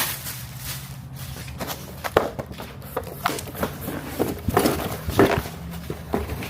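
Footsteps with scattered knocks and rustles, as of parts and paper being handled, over a steady low hum.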